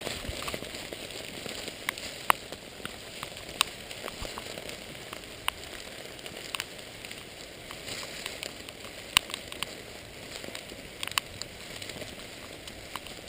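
Summer rain falling in a forest: a steady patter with sharp, louder drop hits at irregular moments.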